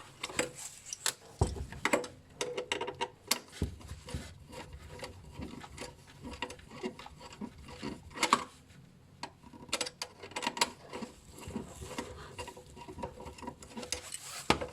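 Flat-blade screwdriver working out the cross-head screws of a ventilation unit's fan-motor retaining plate, with irregular clicks, scrapes and rattles of small metal parts being handled.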